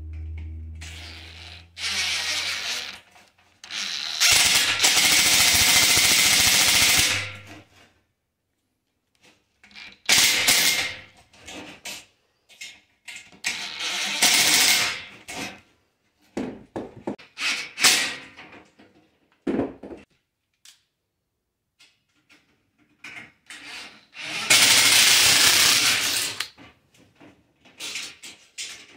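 Cordless impact driver driving screws into an aluminium shower door track, running in repeated bursts of one to three seconds with pauses between; the longest burst comes a few seconds in.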